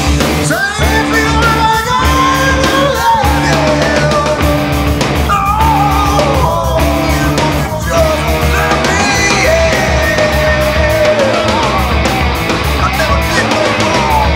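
Rock music with a steady drum beat and a sung melody.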